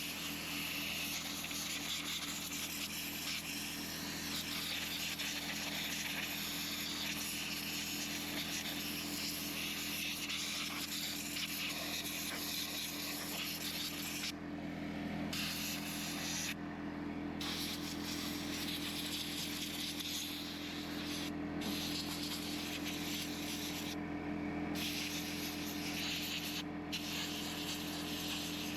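Steady hiss of an air blow nozzle cleaning debris out of a chainsaw, over a steady hum; the hiss stops briefly a few times in the second half.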